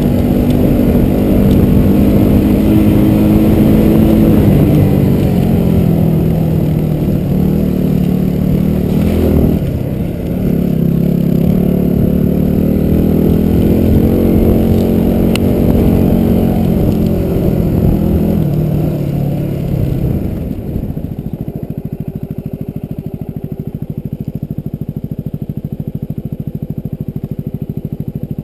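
Motorcycle engine under load, revving up and easing off several times, then dropping to a steady idle about twenty seconds in.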